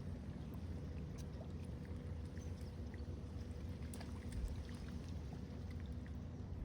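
Faint low rumble of water and hull noise around a kayak, with a few light scattered ticks.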